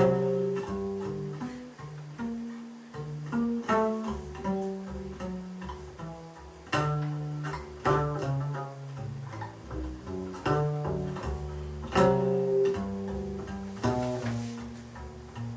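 Instrumental break of a slow ballad with no singing: low bowed strings (cello and double bass) holding sustained notes, with plucked notes starting a new phrase every few seconds.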